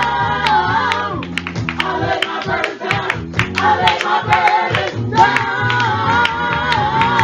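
Congregational gospel singing with electronic keyboard accompaniment and a steady beat. The held sung notes thin out about a second in and come back strongly about five seconds in.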